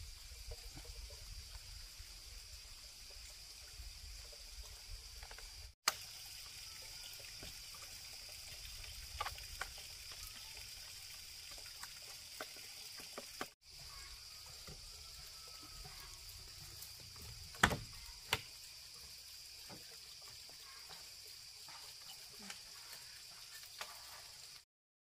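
Outdoor ambience with a steady high-pitched drone and scattered knocks and taps. The loudest is a sharp knock about two-thirds of the way through. The sound drops out briefly twice and cuts off just before the end.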